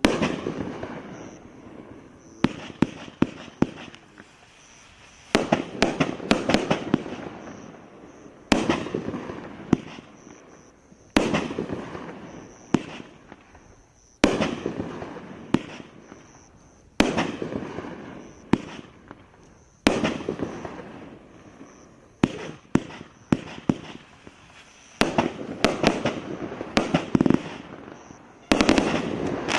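Sunwing 'Hearts on Fire' 500-gram consumer fireworks cake firing volley after volley. Each volley is a few sharp bangs followed by a rush of many small pops that fades over a second or two, with a new volley every two to three seconds.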